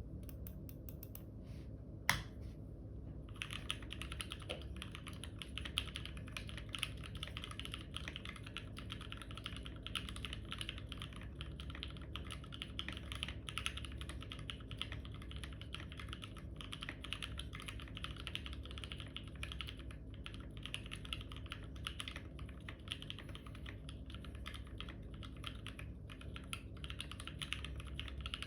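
Custom 60% mechanical keyboard with Gateron Red linear switches lubed with Krytox 205g0, on an aluminium plate in a foam-damped case, being typed on. A few scattered keystrokes and one sharp clack about two seconds in come first, then fast, continuous typing from about three seconds in.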